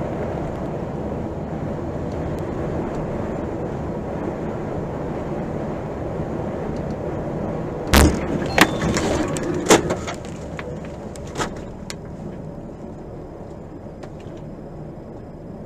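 Steady engine and road noise inside a moving truck's cab. About halfway through come a few sharp knocks over a few seconds, the first the loudest, after which the running noise gets quieter.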